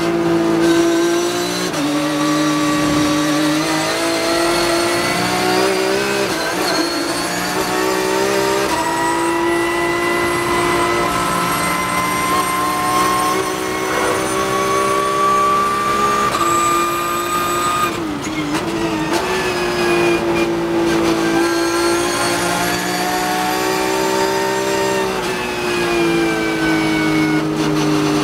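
Porsche 911 GT3 Cup (991.2) race car's naturally aspirated flat-six, heard from the cockpit under hard acceleration. The engine note climbs steadily through the upshifts, drops with short gaps as the car brakes and downshifts about two-thirds of the way through, then pulls up again.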